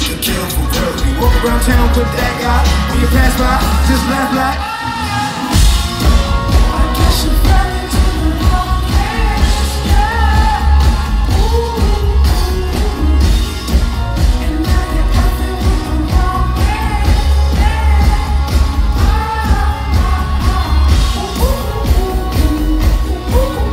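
Live concert music: a loud, bass-heavy beat with vocals over it. The bass drops out for about a second, roughly five seconds in, then comes back in.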